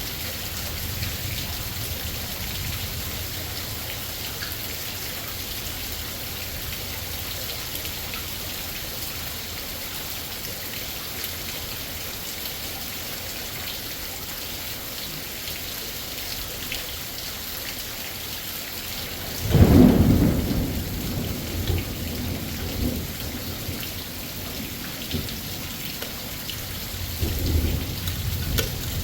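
Steady rain falling throughout. About two-thirds of the way through comes a loud crack of thunder that rolls on and fades over several seconds, and a fainter rumble follows near the end.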